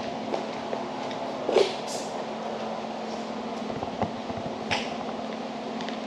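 Steady hum of a large indoor hall with a constant low tone, typical of air-conditioning or ventilation. A short squeak comes about a second and a half in, with a few light knocks and clicks near the end, as someone moves around on the concrete floor.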